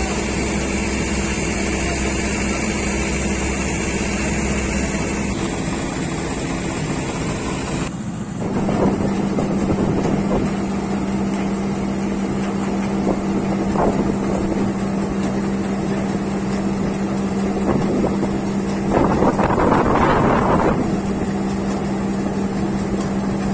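Mahindra Novo 755 DI tractor-mounted rice combine harvester running under load, a steady engine and threshing drone. A rustling noise swells up several times over it, the longest about twenty seconds in.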